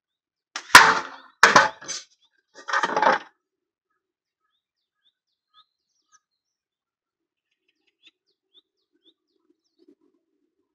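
A slingshot shot strikes a drink can with a sharp hit, followed by another sharp knock and a short rattle as the can is knocked down and falls. Faint bird chirps follow.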